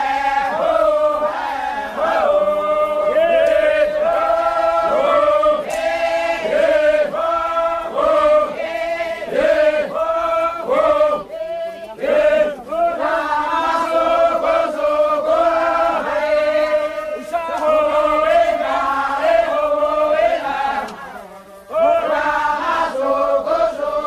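A group of men chanting together in unison, repeating a short rhythmic phrase around one held pitch. The chant breaks off briefly twice, the second time near the end, and then starts again.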